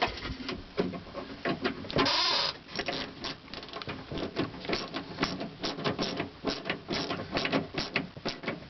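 Socket ratchet wrench clicking in quick, uneven runs as it tightens a door-handle mounting nut, with a brief louder scrape about two seconds in.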